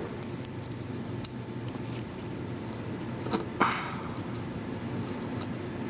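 Screwdriver working a small screw into the metal housing of an internal card reader and floppy drive unit: scattered light metallic clicks and clinks, with a short scrape a little past halfway.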